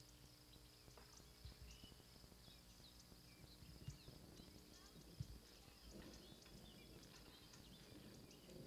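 Faint outdoor ambience: scattered short bird chirps, with a few brief low thumps of wind or handling on the microphone.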